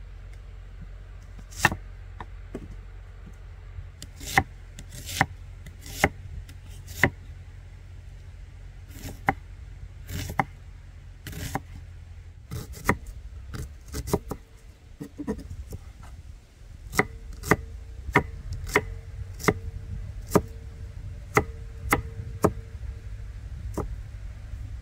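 Knife chopping food on a wooden cutting board: sharp, irregular knocks about one a second, with a few longer scraping strokes near the middle, over a steady low rumble.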